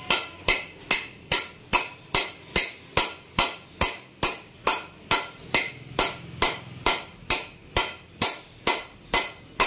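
Hammer blows on metal, steady and evenly spaced at about two and a half strikes a second, while a Yamaha RX135 engine's aluminium crankcase half is being worked on.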